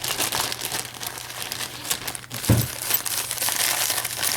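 Crumpled paper packing crinkling as it is handled and pulled apart, with one dull thump about two and a half seconds in.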